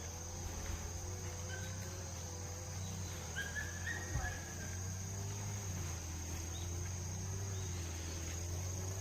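Steady high-pitched chirring of crickets, with a low steady hum underneath and a few short chirps about a second and a half in and again around the middle.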